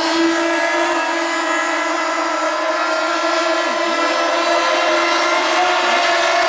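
Several small radio-controlled model boat engines running at high revs, a steady high whine from more than one engine whose pitch dips briefly now and then.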